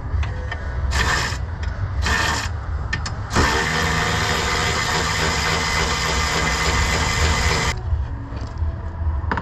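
A power tool runs in two short bursts about a second apart, then steadily for about four seconds, over a constant low rumble.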